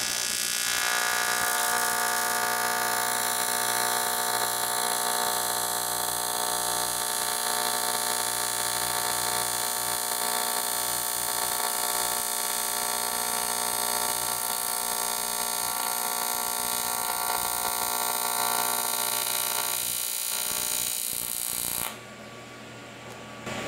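AC TIG welding arc running a fusion bead, without filler rod, along 6061 aluminum plate: a steady buzz with a high hiss over it. It holds for about twenty seconds and cuts off suddenly near the end as the arc is stopped.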